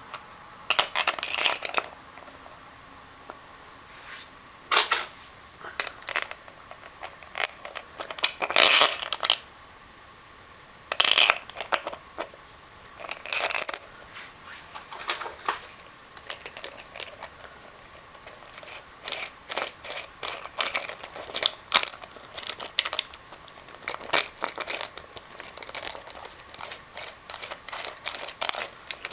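Repeated sharp metallic clinks and clatter of small metal parts and tools being handled and set down, irregular, some in quick clusters and some ringing briefly.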